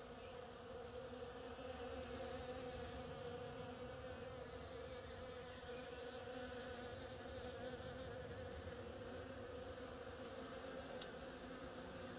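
Bees buzzing as they forage on the flowers of an oriental creeper vine, many together making one steady, even-pitched hum.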